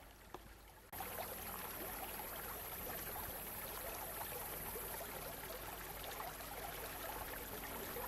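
Steady rushing of a creek's flowing water. It comes in suddenly about a second in and then holds steady.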